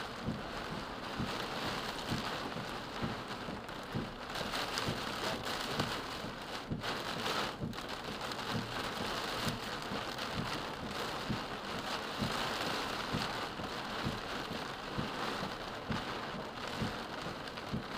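Heavy rain beating on a car's body and windows, heard from inside the car as a steady wash with many separate drop impacts.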